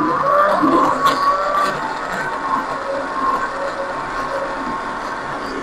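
Electric mixer-grinder running steadily, blending tomatoes and onions with a little water into a thick paste.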